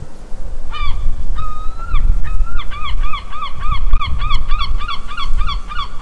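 A gull calling: a short call, then one drawn-out call, then a fast run of short yelping calls, about three a second, that stops just after the end. A low rumbling noise runs underneath.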